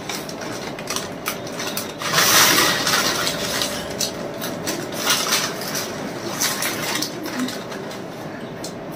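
Foil Lay's chip packets crinkling and rustling as hands dig into them, with chips crunching; a louder burst of crinkling about two seconds in.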